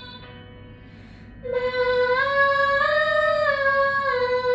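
Female voices singing a vocal warm-up exercise. A quieter held note gives way about a second and a half in to a loud sustained vowel that steps up a few notes and back down, one held pitch at a time.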